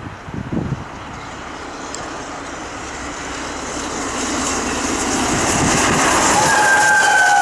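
Three-cylinder LNER Peppercorn A1 Pacific steam locomotive 'Tornado' working hard on an express as it approaches, its running noise growing steadily louder. About six and a half seconds in its chime whistle sounds, a chord of several notes sliding slightly down in pitch as it passes close.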